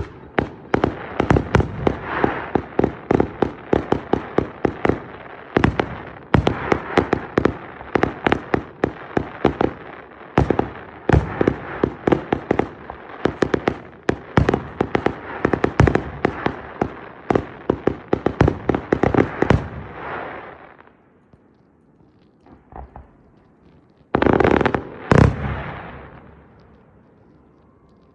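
Fireworks display finale: a rapid barrage of bangs, several a second, for about twenty seconds, then fading away. After a short lull, two last loud bursts go off and echo away.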